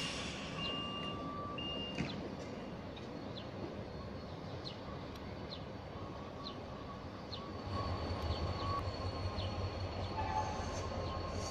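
Croatian Railways (HŽ) locomotive running through the station tracks, with a steady high whine and light regular ticks. About eight seconds in, a low rumble comes up and grows louder as the locomotive draws nearer.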